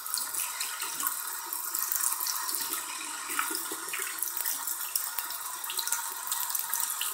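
Water running from a bathroom tap into the sink, breaking over a hand-held metal mod as it is rinsed: a steady splashing hiss.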